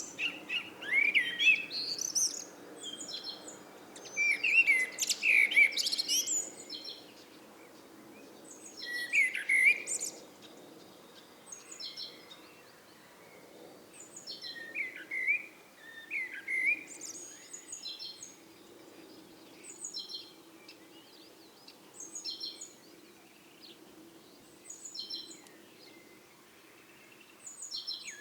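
Eurasian blackbird singing: phrases of low fluted warbling with a few seconds' pause between them, louder in the first seconds. High, thin repeated notes come in between the phrases, over a faint steady low hum.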